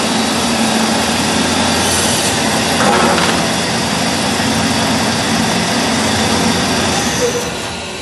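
Pig-feet cutting machine running, its row of blades sawing pig trotters into chunks: a loud, steady mechanical whirr with grinding, easing off a little near the end.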